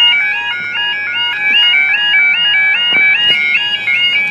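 Railway level crossing audible warning alarm sounding a two-tone warble, switching between a high and a low note about three times a second. It signals that the barriers are down and a train is approaching.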